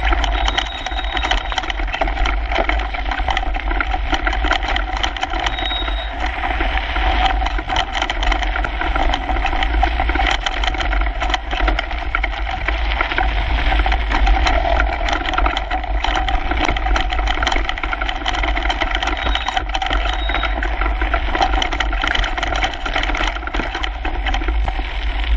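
Kona Coiler mountain bike rattling fast down a loose gravel trail, heard through a handlebar-mounted GoPro: a continuous clatter of tyres on stones and the bike shaking over bumps, over a steady low rumble.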